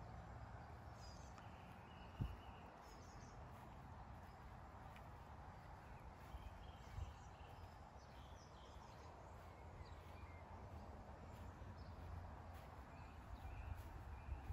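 Near silence: faint outdoor ambience with a few distant bird chirps and a single soft thump about two seconds in.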